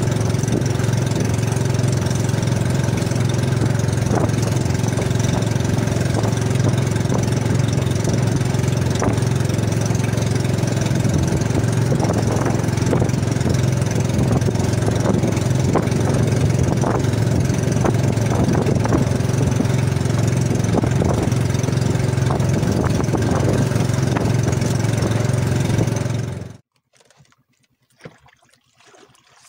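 Outrigger fishing boat's engine running steadily under way, a constant low drone, cutting off abruptly near the end to leave only faint small sounds.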